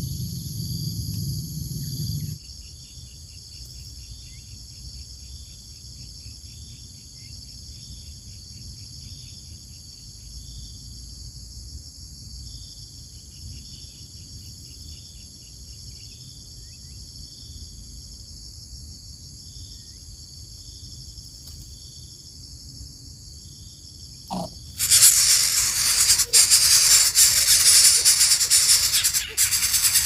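Insects chirping: a steady high buzz with short pulsed chirps about once a second. About 25 seconds in, a much louder hissing, rustling noise with a few sharp clicks takes over.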